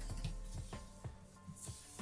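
Soft background music with held notes, with a few faint light knocks.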